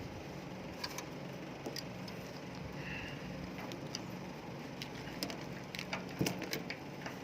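Scattered light clicks and ticks from handling the fan's small parts and wires, with more of them near the end, over a steady low hum.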